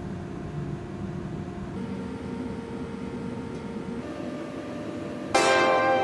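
Steady mechanical noise of a plating line's fume-extraction machinery, with faint held tones that shift in pitch twice. About five seconds in, loud music starts.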